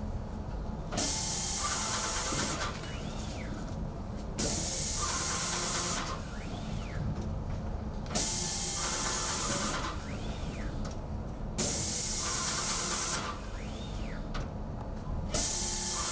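Myro painting robot spraying paint onto a wall in repeated bursts of hiss, each about a second and a half long, coming every three and a half seconds or so. Between the bursts a faint whine rises and falls in pitch.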